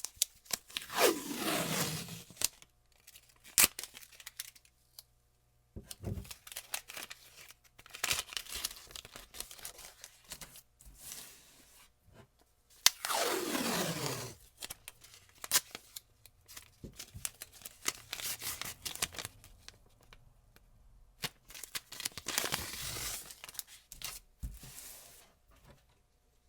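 Painter's tape being pulled off the roll in two long pulls, one at the start and one about halfway, each with a screech that falls in pitch. Between them come shorter bursts of tearing and crinkling with sharp clicks.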